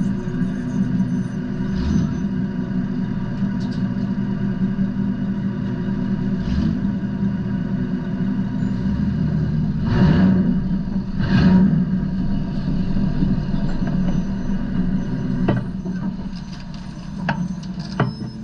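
A motor vehicle's engine running steadily with a low, even drone, swelling louder briefly twice about ten and eleven and a half seconds in.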